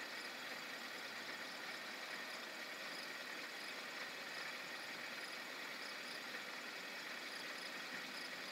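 Steady, faint outdoor night ambience: an even hiss with a faint, regular high-pitched chirping running through it. No thunder is heard.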